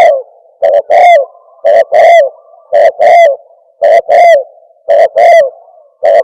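Spotted dove cooing fast, the rapid 'thổ còi' call. Each phrase is a short note followed by a longer falling coo, repeated about once a second.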